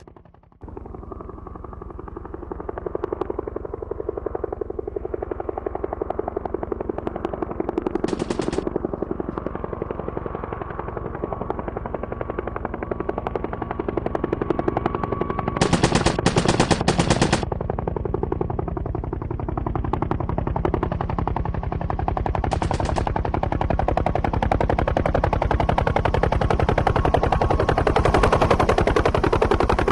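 UH-1 Huey helicopter's rotor beating in a fast, steady thump with a steady whine, growing gradually louder. Brief, brighter rattling bursts cut in about 8 seconds in, for about a second and a half around 16 seconds, and again around 23 seconds.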